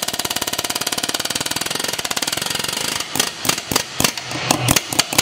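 Pneumatic impact wrench hammering rapidly on the rear control-arm bolt of an Infiniti G37 to loosen it, then stopping about three seconds in, followed by a few separate metallic knocks and clinks of the tool and bolt.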